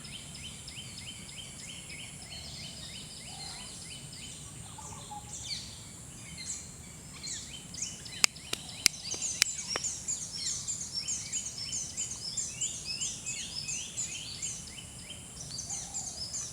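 Several birds calling at once, each giving rapid runs of short, falling chirps, over a steady high-pitched whine. A few sharp clicks come about eight to ten seconds in.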